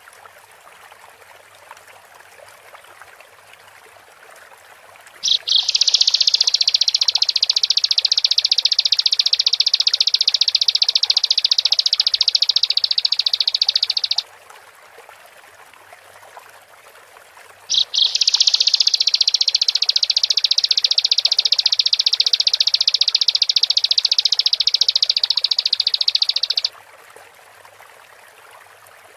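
Bar-winged prinia (ciblek) singing: two long, rapid, high trills of about nine seconds each, the first starting about five seconds in and the second about eighteen seconds in. A faint steady hiss fills the gaps between them.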